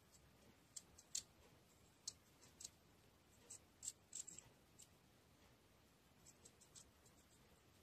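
Faint crisp snicks of a Kom-Kom paring knife cutting into raw carrot as it is trimmed round, about a dozen short clicks at an irregular pace, thickest around four seconds in.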